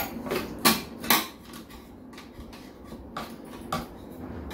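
Metal chopsticks and a spoon clinking against bowls and a plastic container while eating: three sharp clicks in the first second or so, then a few fainter taps.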